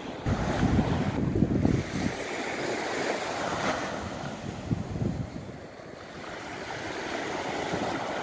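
Mediterranean sea waves washing onto the beach, with wind buffeting the phone's microphone in low rumbling gusts, loudest from about half a second to two seconds in.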